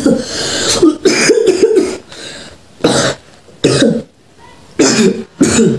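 A boy coughing repeatedly, about six coughs with short pauses between them.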